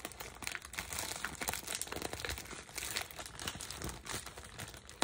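Plastic mailer bag crinkling and rustling in hands in a series of irregular small crackles as it is pulled at and twisted in an attempt to tear it open by hand.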